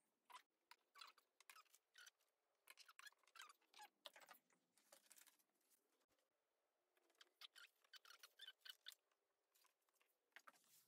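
Very faint, irregular snips and rustles: small scissors clipping notches into black fabric, with fabric and a paper pattern being handled.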